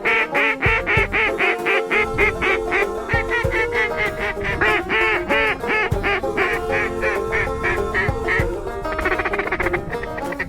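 A long run of evenly spaced mallard quacks, about three a second, followed near the end by a quicker, raspier run of calling, with background music underneath.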